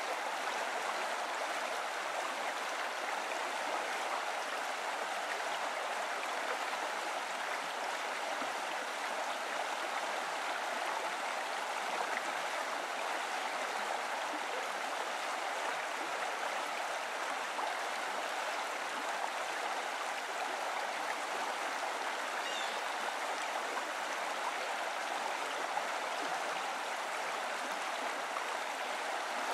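Steady, even rush of running water, unchanging throughout.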